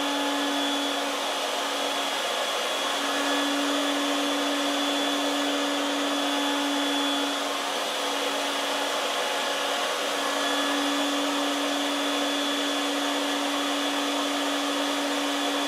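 Router spinning in a router table while it cuts a slot along the top edge of a wooden fence board: a steady high hum over a rushing hiss, the hum wavering slightly about halfway through.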